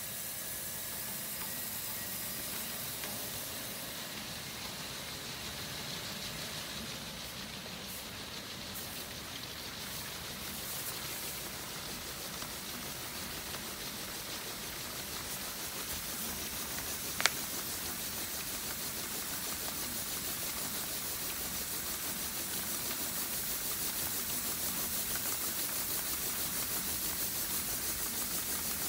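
A 10-metre, 75 mm flexible spiral auger conveyor running under its electric motor, moving barley through the tube and out of the spout: a steady hissing rush. There is one sharp click about 17 seconds in.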